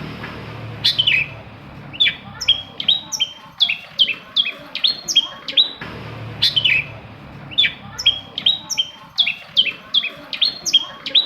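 Long-tailed shrike (cendet) singing a rapid series of sharp, downward-sweeping chirps, about three a second. A phrase of about six seconds is heard twice.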